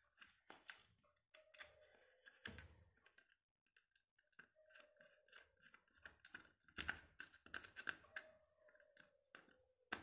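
Faint handling noise of a plastic bulb holder as a wire is fitted to its terminal: scattered small clicks and scrapes, busiest a few seconds before the end.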